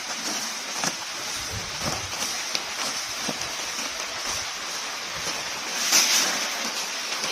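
Water buffalo grazing: irregular short rips and crunches as grass is torn and chewed, over a steady hiss, with a louder rustle about six seconds in.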